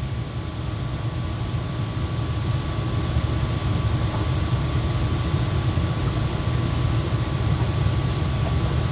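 Steady low mechanical rumble with a thin, steady whine above it, from a running machine.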